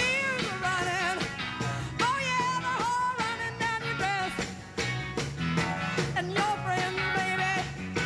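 Live psychedelic rock band playing with drums, cymbals and bass under a loud lead melody whose notes bend and waver.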